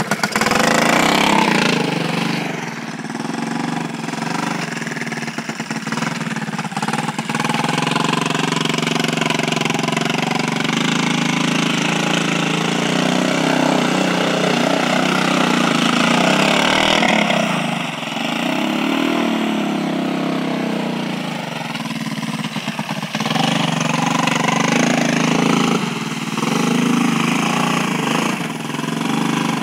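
Honda three-wheeler ATV engine running under load and revving up and down as it churns through slush and icy floodwater.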